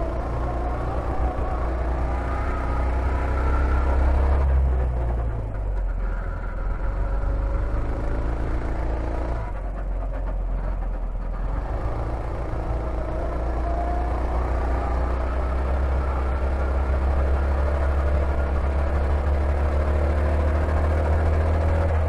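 Go-kart engine heard from the driver's seat, revving up with a rising pitch. It eases off briefly about five seconds in and again around ten seconds in for corners, then pulls steadily back up.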